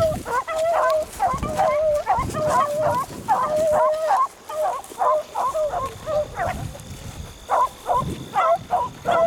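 Beagles baying while trailing a jumped rabbit: a rapid string of short, pitched barks from more than one hound, thinning out in the middle and picking up again near the end.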